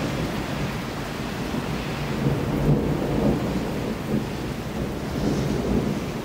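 Thunder rumbling over steady rain. The rumble swells a couple of seconds in and again near the end.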